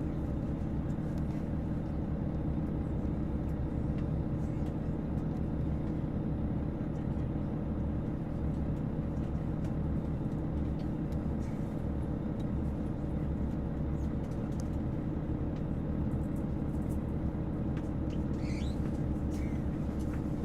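KiHa 281 series diesel railcar's engines idling with the train standing still, a steady low hum heard inside the passenger cabin.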